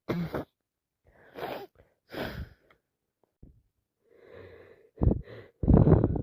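A woman with a heavy head cold in a sneeze build-up: gasping, catching inhales and a wheezy breath in, then a sharp burst about five seconds in and a loud sneeze near the end.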